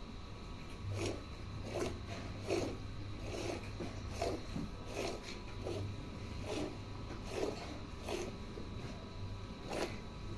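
Cow being milked by hand: rhythmic squirts of milk hitting the pail, about one stroke every second or a little faster, steady throughout.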